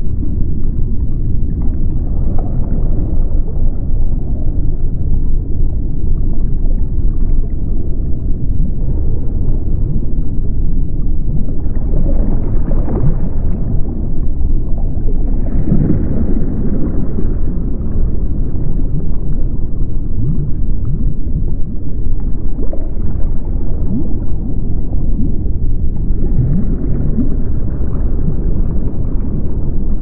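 Underwater deep-ocean ambience: a loud, steady, deep rumble of muffled water noise, swelling now and then with a softer hiss.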